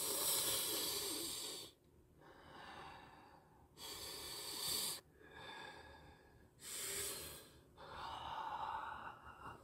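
A person breathing out heavily close to the microphone, three long breathy puffs a few seconds apart.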